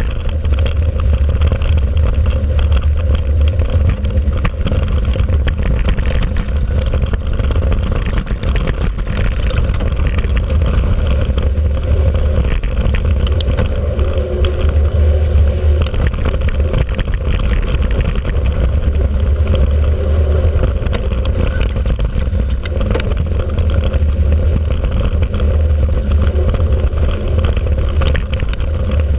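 Mountain bike riding fast on a dirt forest track, recorded by a camera on the bike: steady wind rumble on the microphone with tyre noise and frequent small rattles from the bike jolting over the ground.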